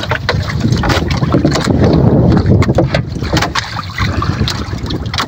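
Wind buffeting the microphone aboard a small fishing boat at sea, a constant low rumble, with scattered short knocks and clatter from the catch and gear being handled in the wooden fish box.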